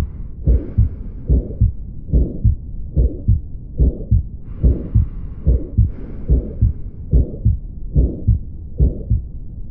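Heart sounds heard through a stethoscope: a steady, regular rhythm of dull low thuds. A soft hiss of breath rises briefly about halfway through.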